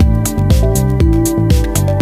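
Background electronic music with a steady beat, about two beats a second, over sustained synth notes and a moving bass line.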